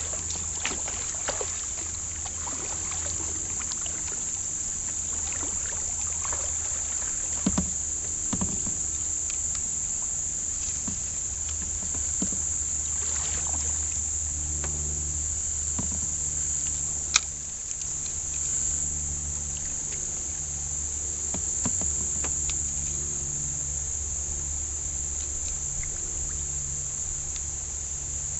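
Steady high-pitched chorus of insects, with the soft swishes of a kayak being paddled and a few sharp knocks, a double one about a third of the way in and a single one a little past halfway.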